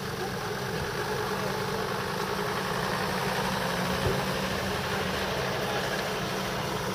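Ambulance engines idling steadily, with an ambulance van driving slowly past about midway and a short knock about four seconds in.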